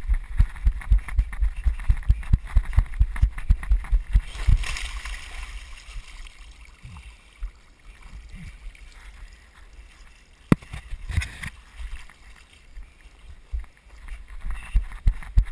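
Quick, rhythmic thumps of running steps jolting a chest-mounted action camera. Then a splash as the rider lands on a body board on a wet Slip 'N Slide, and a wet hiss of sliding on the plastic that fades over a few seconds. A single sharp knock comes about ten seconds in.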